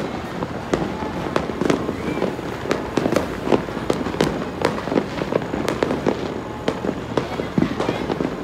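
Fireworks going off all around: a dense, irregular run of sharp bangs and pops, some loud and some fainter, several a second.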